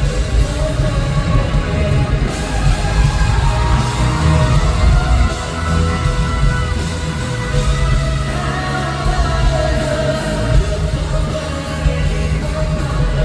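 Loud live pop-rock music over a concert sound system, heavy in the bass, with a voice holding and sliding between sung notes and yells from the crowd.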